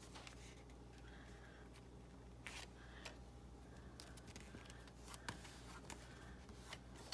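Near silence: faint, scattered taps and brief rustles of paper being pressed and glued down by hand, over a low steady hum.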